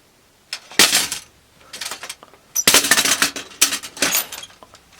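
Foley props dropped and rattled to imitate an old ontel bicycle falling over: a few sharp clanks in the first two seconds, then a louder run of clattering, rattling impacts from about halfway on.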